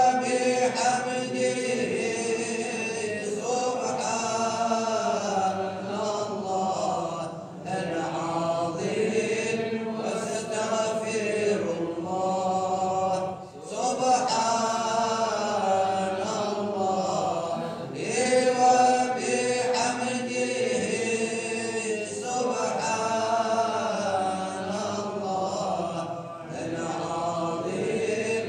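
Sufi religious chanting (samāʿ) in the Annaba style, sung in the modes of Andalusian malouf. The voices hold long melismatic lines that waver in pitch, dipping briefly a few times between phrases.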